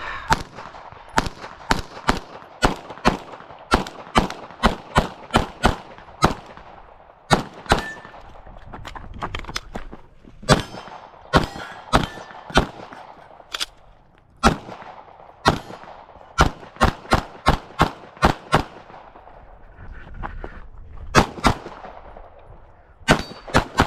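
9mm Glock pistol in Open trim firing a stage run: dozens of sharp shots, mostly in quick pairs about a quarter-second apart, with short pauses between groups.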